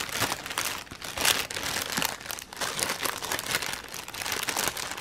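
Clear plastic bags crinkling in uneven bursts as small zip-lock bags of round diamond painting drills are handled and shifted inside a larger plastic bag.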